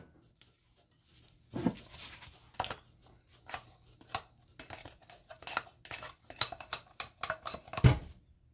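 Dough being scraped by hand out of a glass mixing bowl: scattered light knocks and clinks of the glass bowl, with a heavier thud near the end as the dough is turned out onto the countertop.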